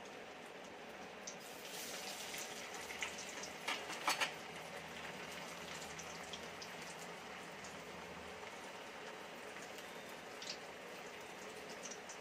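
Chickpea patties (chole tikki) shallow-frying in hot oil in a kadhai on a medium-to-low flame: a steady gentle sizzle with scattered small crackles, and a few sharper pops or clicks about four seconds in.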